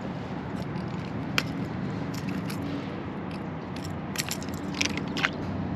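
Handling noises as a freshly caught bass and a hooked crankbait are held in a kayak: a few sharp clicks and scrapes, the clearest about a second in and three more in the last couple of seconds, over a steady low hum.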